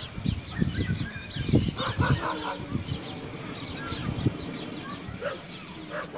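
Birds calling from the ground below: many short chirps, with a few louder, lower honking calls.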